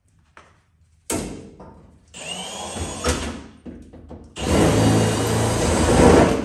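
Welding on the truck cab's sheet steel: a crackling arc in three bursts, a short one about a second in, a second of about a second, then a steadier and louder bead of about two seconds near the end, with a low hum beneath it.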